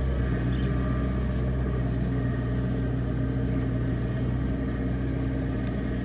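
Kubota DC70 combine harvester's diesel engine running at a steady pitch as the machine cuts and threshes rice, fading slightly as it moves away.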